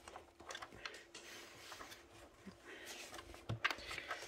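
Faint handling of paper magazines: soft rustles and light taps as pages are turned, with one slightly louder knock about three and a half seconds in, over a faint steady hum.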